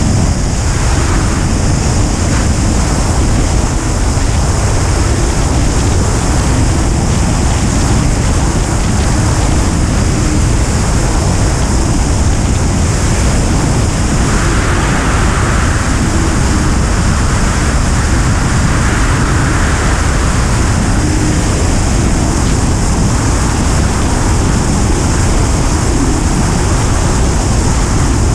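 Steady rush of airflow buffeting the microphone of a camera mounted on a Duo Discus glider's wing in flight. It swells slightly twice about halfway through.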